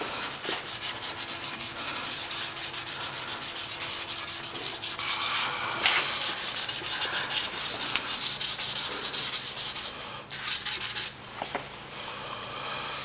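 Abrasive hand pad scrubbed hard across a metal chamber door plate, making rapid scratchy back-and-forth strokes several times a second to rub off a thin deposit film. The strokes pause briefly about six seconds in and grow quieter after about ten seconds.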